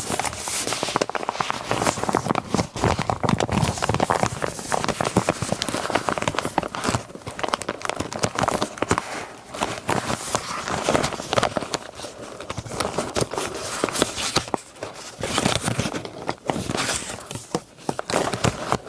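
Paper and scrapbooking materials being handled, rustling and crinkling close to the microphone, with many small crackles and taps.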